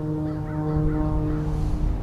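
Background music of slow, held notes. A low rumble comes in about a second in.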